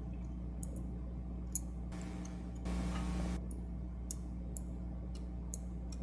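Faint, irregular small metallic clicks from a small screwdriver working screws through a metal bracket on a laptop hard drive, over a steady low hum. A stretch of hiss runs for about a second and a half near the middle.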